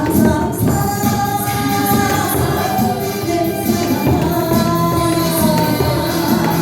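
A song performed live: a singer's held, gliding melody over a backing track, with a tambourine keeping the beat.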